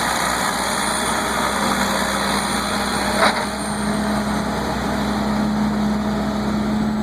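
Caterpillar D9G bulldozer's diesel engine running steadily under load as the dozer works through deep mud, its drone rising slightly in pitch about halfway through. A short sharp knock a little after three seconds in.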